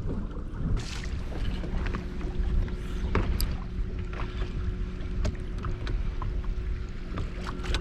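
Small fishing boat on the water: a steady low rumble, with a faint steady hum starting about a second and a half in and a few small clicks and taps.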